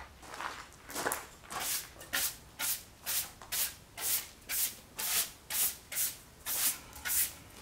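Hand brush sweeping sawdust off a freshly circular-sawn wooden timber, in brisk strokes about two a second.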